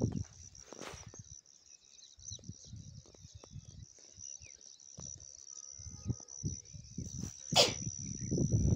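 Open-field ambience: a steady high-pitched insect drone, with low rumbling gusts of wind on the microphone. Two short, sharp sounds stand out, about a second in and near the end, and the one near the end is the loudest.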